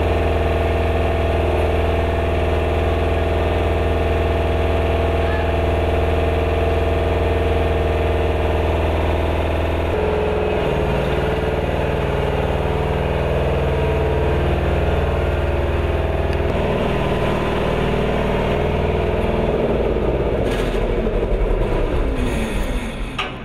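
Engine of a military ground support vehicle running steadily. Its note changes about ten seconds in and again later, then it falls in pitch and winds down near the end.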